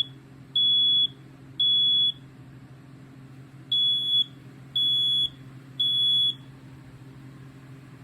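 BRK 4120 AC-powered ionization smoke alarm sounding its temporal-3 (code 3) alarm on test: high, steady half-second beeps in groups of three with a short pause between groups. The last two beeps of one group, then a full group of three, after which it stops about six seconds in.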